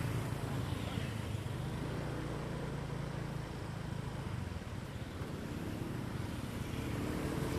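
A motor vehicle's engine running steadily, with road noise.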